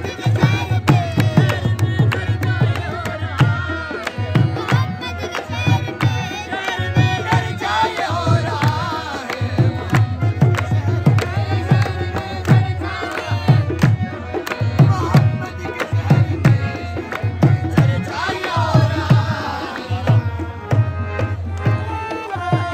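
Qawwali music: a harmonium playing held chords and melody, with a hand drum beating a steady rhythm and voices singing over it.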